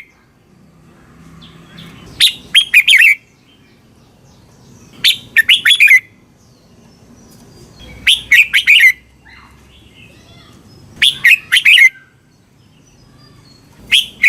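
Red-whiskered bulbul singing the same short, loud phrase about every three seconds: a sharp opening note, then a quick run of warbled whistles. The bird gives four full phrases, and a fifth begins at the very end.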